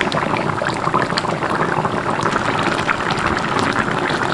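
A pot of coconut-milk curry with cassava leaves bubbling at a simmer: a steady, dense crackle of bursting bubbles.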